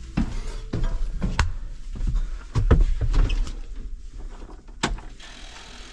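A series of irregular sharp knocks and clunks, several bunched near the middle over a low rumble, typical of someone moving about and handling parts on a tractor.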